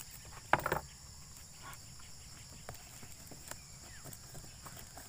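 Hands handling a cardboard box as it is sealed with adhesive tape: a brief loud burst of rustling and crackling about half a second in, then scattered light scratches and taps on the cardboard.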